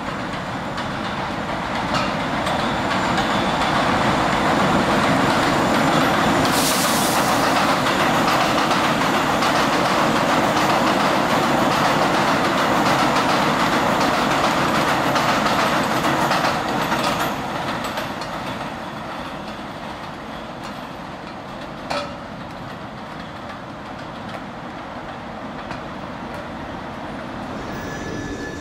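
New York City Subway train running into an elevated station and rolling past close by, its wheels rumbling and rattling on the elevated track. The noise builds over the first few seconds, stays loud for about a dozen seconds, then eases off, with a single sharp click about two-thirds of the way through.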